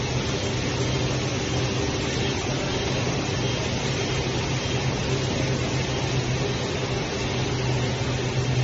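Steady mechanical hum with a low drone and an even airy hiss, unchanging throughout.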